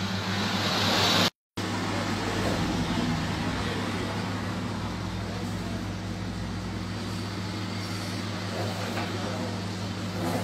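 Steady low hum under a haze of street traffic noise. A noise swells over the first second, then the sound cuts out completely for a moment.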